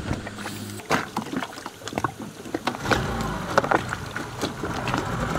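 Knocks and clatter of someone moving about in an inflatable dinghy, then its small outboard motor starting on the first pull about three seconds in and running at a steady low idle.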